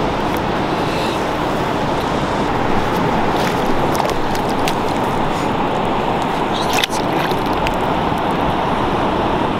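Steady wind noise rushing over the microphone, with surf washing in the shallows on a sandy beach.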